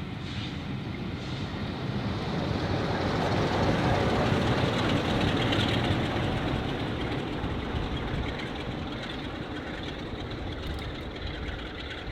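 A train running through the station: the rumble of its wheels on the rails swells to a peak a few seconds in, then fades away.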